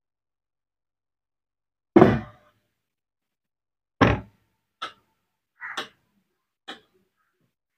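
Handling knocks from work on an opened electric rice cooker with a screwdriver: two heavy thuds about two and four seconds in, then three lighter clicks.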